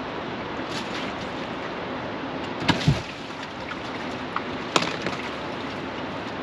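Steady rushing of flowing river water, with a few short sharp knocks: a pair about three seconds in and one near five seconds.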